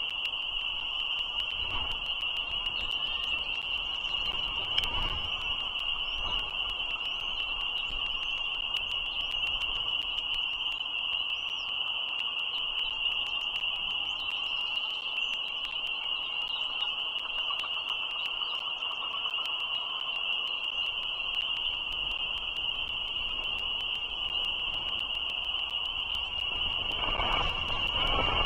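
A steady high-pitched drone that never changes, with faint short rising chirps over it in the first half and a low rumble coming up near the end.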